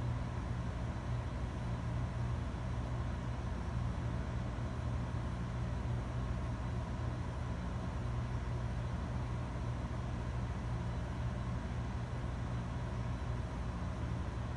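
Steady low hum and hiss of room noise among running electronic equipment, with a faint thin high tone above it; no distinct events.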